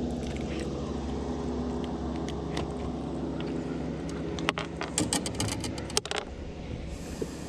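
A boat's motor running with a steady low hum, and a quick cluster of clicks and rattles from about four and a half to six seconds in.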